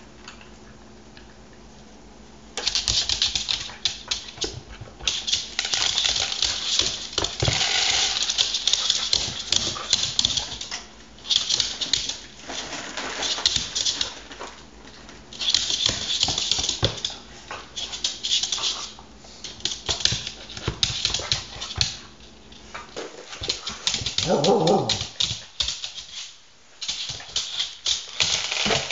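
Welsh corgi eating dry kibble: rapid crunching and clicking of kibble against the bowl and the hard floor, starting a few seconds in and coming in spells of a few seconds. A short whine about three-quarters of the way through.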